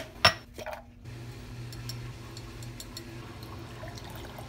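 Two sharp clicks, then from about a second in a steady pour of water from a Brita pitcher into a pint glass over powdered drink mix.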